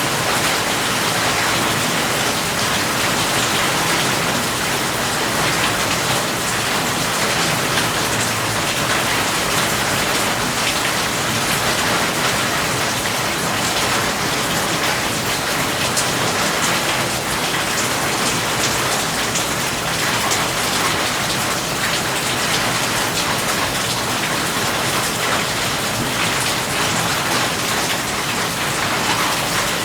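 Steady rain falling on a surface: an even hiss with the ticks of single drops.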